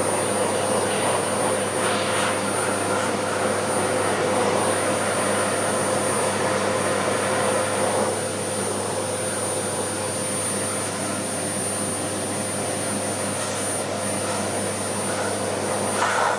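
Vacuum cleaner running steadily at high power with a constant whine, its nozzle held against a Shiba Inu's coat to suck up loose fur after brushing. The sound drops a little in level about halfway through.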